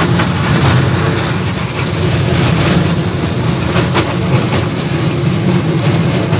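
Engine of a small park ride train running steadily under way, a low even hum heard from its open passenger carriage, with a few short clicks and rattles.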